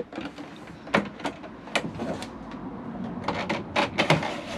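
Pleated blackout blind on a motorhome roof skylight being slid along its track: scattered light clicks and knocks, with a quicker run of sharper clicks about three to four seconds in.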